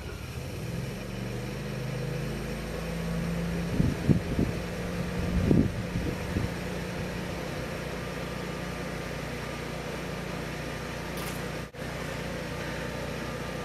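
Honeywell 17 kW natural-gas standby generator starting up on its exercise run and settling into a steady running hum, its engine note shifting over the first few seconds before holding even. A few louder bumps come through about four to six seconds in.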